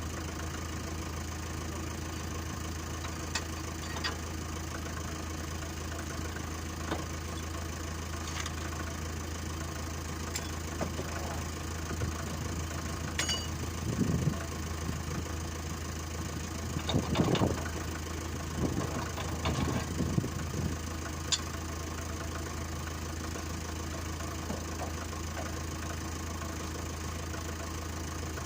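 Diesel tractor engine idling steadily, with a few scattered knocks and thumps around the middle.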